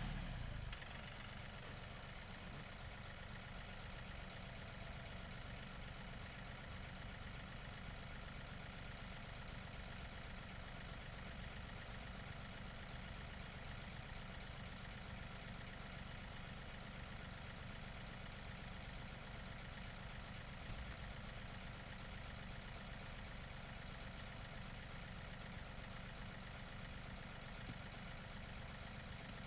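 Tractor engine running steadily at low revs. It is louder for the first moment, then settles to an even level.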